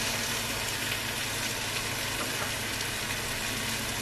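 Food frying in a pan, a steady sizzle with faint crackling.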